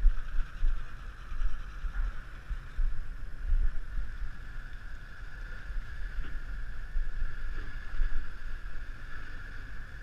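Wind buffeting the microphone on an open ship's deck at sea, with an uneven low rumble, over a steady high-pitched machinery hum.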